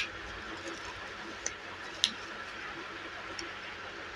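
Small plastic packet being handled and squeezed: a sharp click right at the start and another about two seconds in, with a couple of fainter ticks between, over a steady low hiss.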